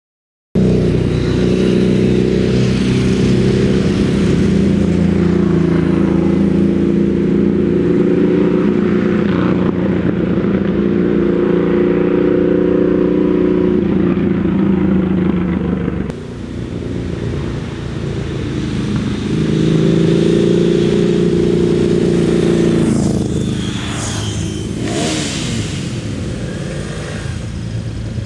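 A high-performance car engine running hard at speed with a steady, loud drone. The sound cuts to another shot about halfway through, and near the end a vehicle passes with a falling pitch.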